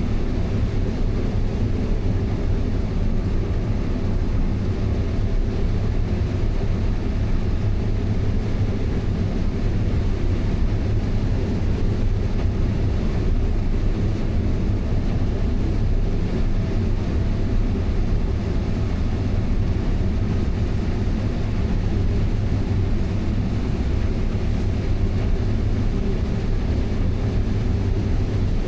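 Farm vehicle's engine running with a steady, unchanging low drone.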